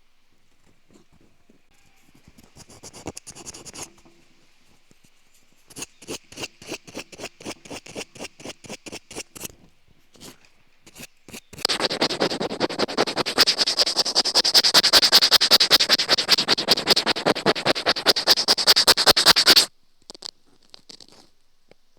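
Close-up scratching in quick rhythmic strokes: a few faint strokes, then a run of about four strokes a second, then a louder, faster run lasting about eight seconds that stops suddenly.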